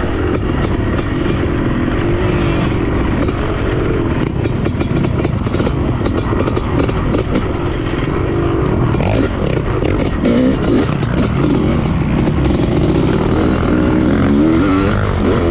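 Dirt bike's 1996 Honda CR500 two-stroke single-cylinder engine running under load while ridden, its pitch rising and falling as the throttle is worked.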